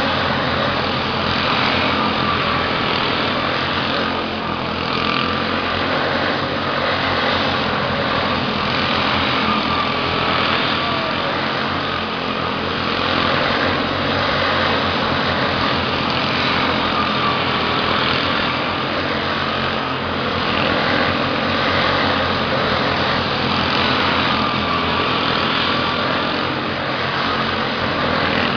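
Midget race cars' small engines running at high revs as the cars circle the oval, the whine rising and falling and swelling each time the pack comes by, every few seconds.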